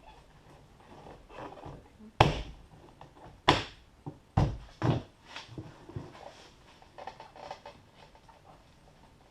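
Hand striking a car door panel to snap its plastic retaining clips into the door: a series of sharp knocks, the loudest about two seconds in, then several more over the next four seconds.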